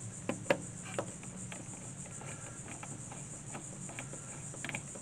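Small clicks and ticks of a screwdriver tightening a wire into a screw terminal on a battery management board, with a few sharper clicks in the first second and fainter ones after. A steady high-pitched hiss and a low hum run underneath.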